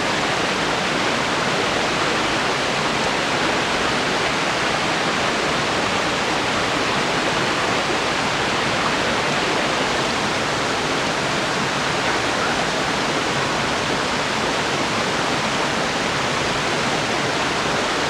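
Fast-flowing river water rushing steadily over rocks, an even, unbroken rush at a constant level.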